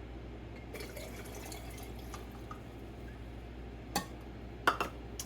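Water poured briefly into a container for pickle brine, followed by a few sharp clinks of glass and dishes near the end.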